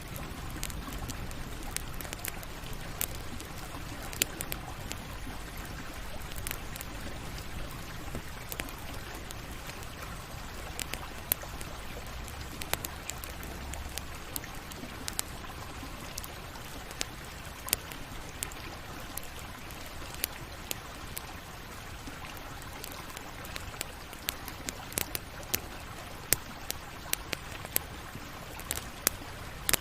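Wood campfire burning: a steady hiss with frequent, irregular sharp crackles and pops from the burning wood.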